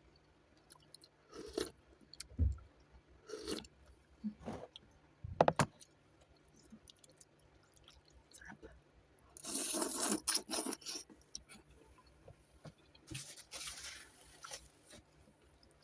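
Close-miked chewing of noodles with vegetables and pork, with scattered short clicks and two longer noisy stretches about ten and thirteen seconds in.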